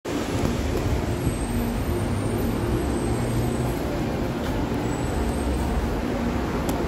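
Steady low rumble and noise of a vehicle in motion.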